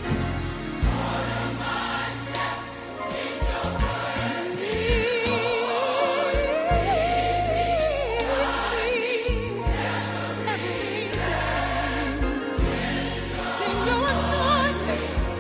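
Gospel choir singing over a full band with steady bass notes and drum hits. Around four seconds in, a voice with heavy vibrato climbs and holds a high note for a few seconds.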